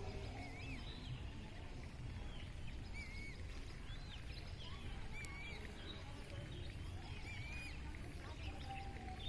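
Small birds chirping, one short wavering call repeating about every two seconds among other brief chirps, over a steady low rumble.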